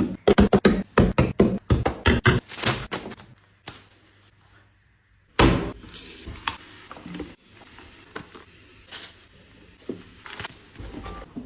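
A quick run of sharp knocks and taps, several a second, for the first few seconds, then a short lull and a loud thump about five seconds in, followed by fainter scattered knocks.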